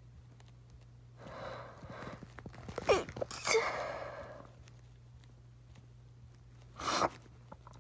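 A person sneezing. A breathy build-up of a second or so leads to the sneeze about three seconds in, and a second short, sharp burst comes near the end.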